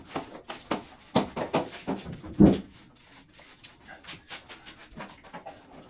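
Camping gear being unpacked by hand: rustling of bags and irregular knocks of things being handled and set down, with one louder thump about halfway through.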